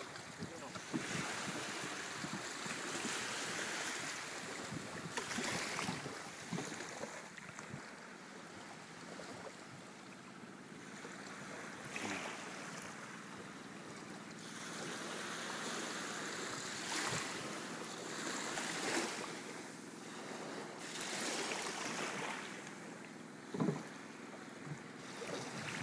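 Small waves washing on a sandy beach, mixed with wind buffeting the microphone, swelling and easing every few seconds. A short, louder sound stands out near the end.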